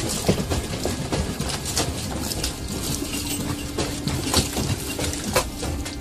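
Household objects rattling and clinking in a cluttered room: a dense run of irregular clicks and knocks, with a low steady hum coming in about halfway.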